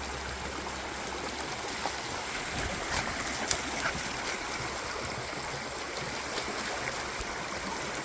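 Snowmelt run-off stream rushing steadily, with a few short sharp clicks about three to four seconds in.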